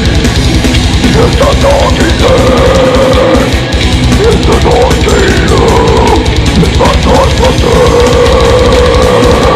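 Heavy metal band playing live: distorted electric guitars holding sustained notes over a drum kit, with fast bass-drum strokes from about three seconds in.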